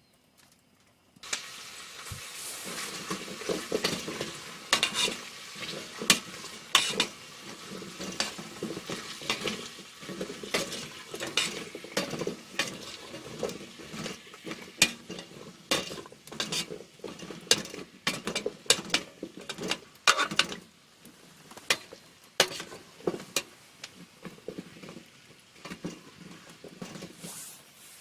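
Food sizzling in a pan over heat, with a metal utensil stirring and clinking against the pan. The sizzle starts suddenly about a second in.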